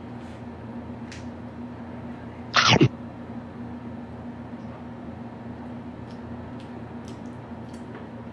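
Sounds of a child eating noodles at a table, over a steady low hum: faint clicks of a fork against a plate, and about two and a half seconds in one short, loud sound that falls sharply in pitch.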